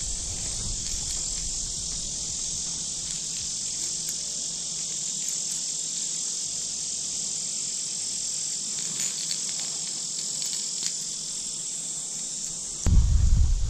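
Steady high-pitched chorus of insects, a continuous even buzz with no let-up. About a second before the end, a sudden low rumble cuts in over it.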